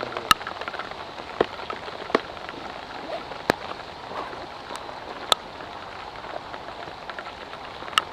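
Steady rain falling, a constant patter, with about half a dozen sharp taps scattered through it.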